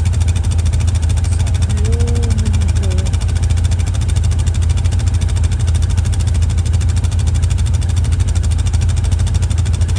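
Engine idling steadily: a loud, even low hum with fast regular pulsing.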